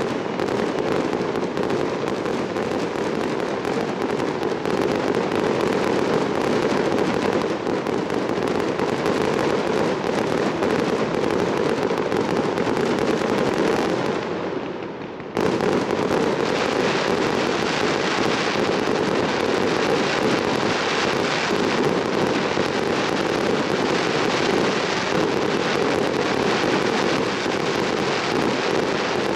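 Fireworks display: a dense, continuous crackling and popping of many shells bursting at once. Near the middle it dips briefly, then cuts back in at full strength.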